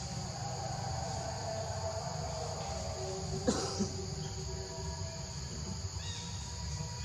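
Steady high-pitched insect chorus, with a low rumble underneath. A sharp click comes about halfway through, followed by a fainter one.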